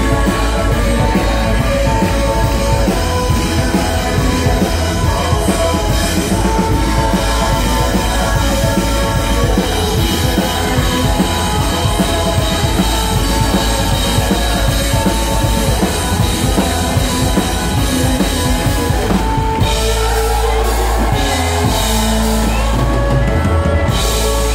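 Live country-rock band playing loudly through a PA, with drum kit, acoustic guitar and fiddle in an instrumental passage. About twenty seconds in the drums drop out for a few seconds, leaving held notes, before the full band returns.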